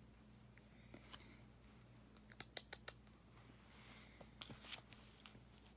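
Near-silent room broken by a quick run of sharp clicks a little over two seconds in, then more scattered scratchy clicks about four to five seconds in: a cat in a plastic cone collar pawing and shifting about on bedding.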